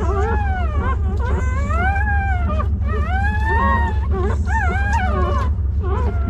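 Newborn puppies crying: a run of about half a dozen high-pitched whimpering cries, each rising and falling, some overlapping, over a steady low hum.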